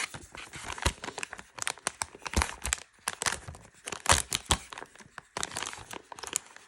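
A card-game mystery pouch being torn open and handled: packaging crinkling and tearing, with a dense run of irregular crackles and sharp clicks.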